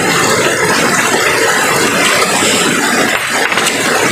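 A steady, loud rushing noise with no pitch to it, and a few sharp knocks about three seconds in as a steel hammer is tapped against a stone boulder.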